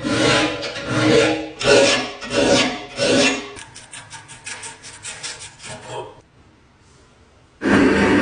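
A hand tool rasping back and forth over a surface: about six long, loud strokes, then quicker, shorter strokes that stop about six seconds in. Near the end a loud, steady rushing noise starts abruptly.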